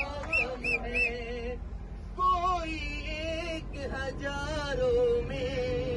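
A man singing a slow Hindi film song into a handheld microphone, holding long, wavering notes.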